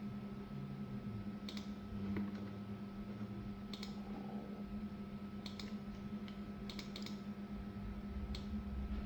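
Scattered keystrokes on a computer keyboard, about ten irregular taps with a quick cluster in the middle, over a steady low electrical hum.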